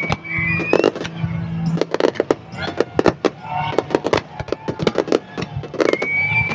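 Aerial fireworks bursting in quick succession, a dense run of sharp bangs and crackles. A rising whistle sounds near the start and again near the end.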